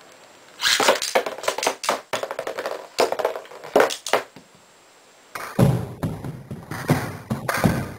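Spinning-top battle: Lightning L-Drago's metal wheel clashing with a heavy 900 g top in a Beyblade stadium, making rapid, irregular clacks and knocks. They come in two runs with a pause of about a second between them, and the second run is heavier and deeper.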